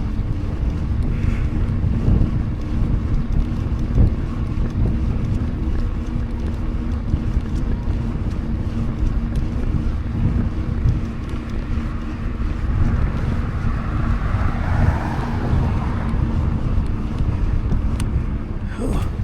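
Wind rushing over the microphone with the rolling noise of a Specialized Stumpjumper mountain bike's tyres on pavement, a steady low hum under it. A short swell of hiss about two-thirds of the way through.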